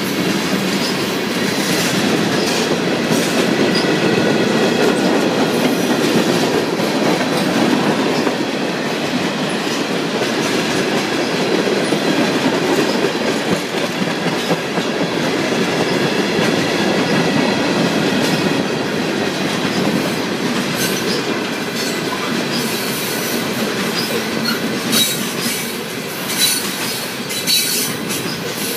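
Freight train of tank cars and coal hoppers rolling steadily past, its wheels rumbling and clicking over the rail joints, with a thin high-pitched squeal from the wheels. Sharp clanks and clicks come more often near the end.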